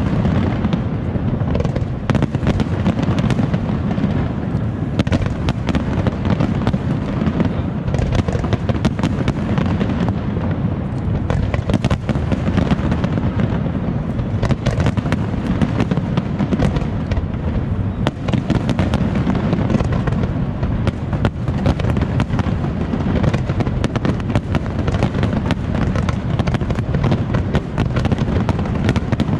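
Aerial fireworks in a dense, continuous barrage: shell bursts and crackles overlap one another with no pause.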